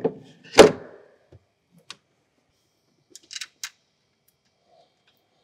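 A replacement 16-volt lithium-ion battery set down into its tray under the bonnet: a knock, then a single loud thump about half a second in as it seats. A few light clicks of handling follow around the middle.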